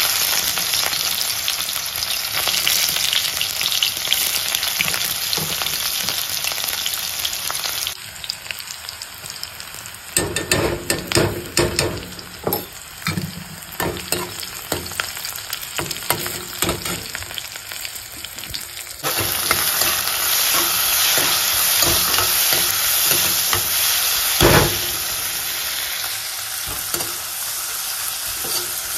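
Sliced red onions sizzling in hot oil in a metal kadai, a steady hiss, with a steel spoon stirring and scraping through the pan in clicks and scrapes through the middle stretch. One sharp knock near the end.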